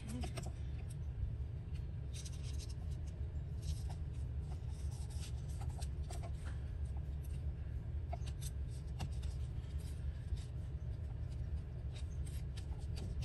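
Glue stick rubbed across paper, with irregular scratchy strokes and paper rustling as scraps are handled and pressed down, over a steady low hum.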